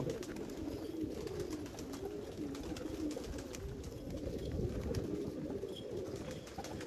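A flock of domestic pigeons cooing, many calls overlapping into a steady low warble, with scattered light taps among them.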